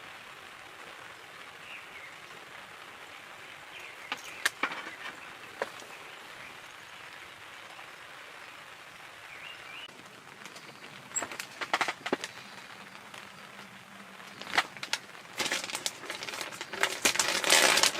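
Steady rain hiss with a couple of faint bird chirps. From about four seconds in come scattered sharp clicks and knocks, growing into a dense clatter near the end.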